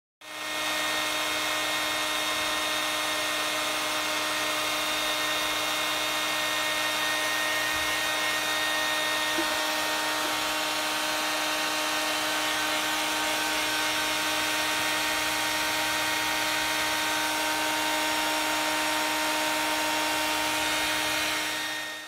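Handheld hair dryer running steadily on its high 'turbo' setting: a constant whirring motor hum over rushing air. It fades in over the first second, then holds an even level.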